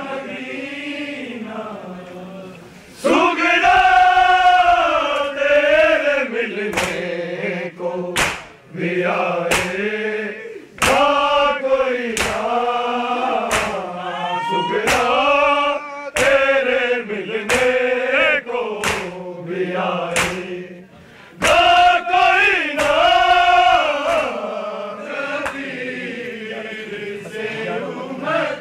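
A group of men chanting a noha, a Shia lament, together in long drawn-out sung lines, with sharp slaps of matam (hands striking chests) roughly once a second.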